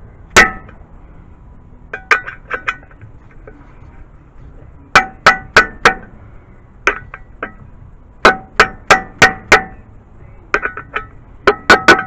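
Mallet tapping a seal-driver tool to drive a new oil seal into an aluminium engine timing cover. The taps come in quick bursts of three to five sharp strikes, each ringing briefly with a metallic tone.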